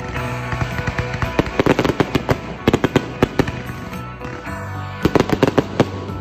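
Fireworks going off in three rapid clusters of bangs and crackles, about a second and a half apart, over music playing throughout.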